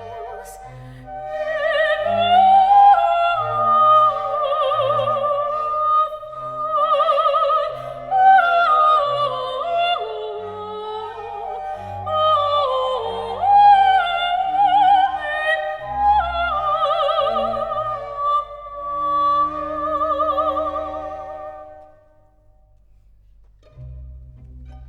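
Background music: an operatic aria, a high voice singing with wide vibrato over orchestral strings. The voice stops about three seconds before the end, leaving quieter accompaniment.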